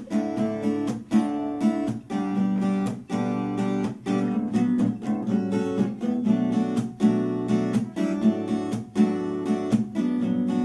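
Acoustic guitar strummed in a steady rhythm, playing the chord progression B minor 7, A7 and G major 7.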